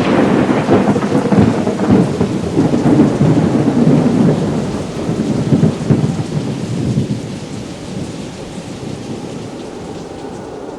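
Thunder rolling over steady rain: a loud rumble that fades away over about seven seconds, leaving the hiss of the rain.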